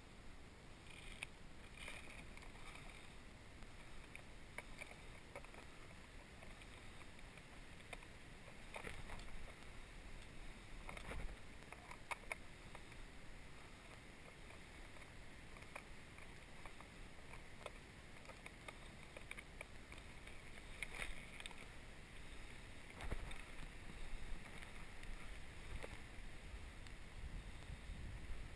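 Footsteps and brushing through leafy ground cover: quiet rustling with scattered crackles and snaps of leaves and twigs, a few louder brushes now and then.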